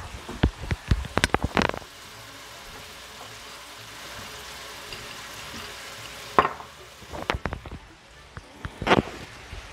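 Marinated boneless chicken thighs sizzling in a hot stainless steel frying pan: a steady hiss broken by bursts of sharp spattering crackles about a second in and again in the second half.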